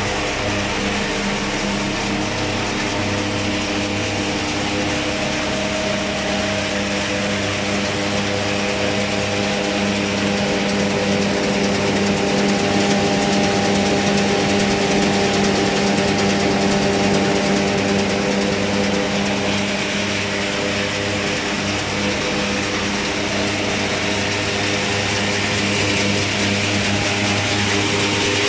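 New red stationary crop-processing machine running steadily. Its gearbox, belt drives and sieve screens make a continuous mechanical drone with a steady hum, a little louder in the middle.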